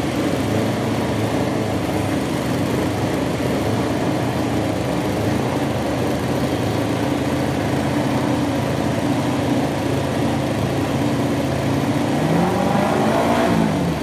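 Aprilia RS-GP MotoGP engines, V4s, running steadily on rear stands during a warm-up, with one throttle blip near the end whose pitch rises and then falls.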